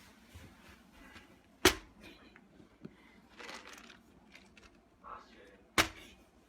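Two sharp knocks or taps, one about 1.5 seconds in and one near the end, with faint rustling and small clicks between them.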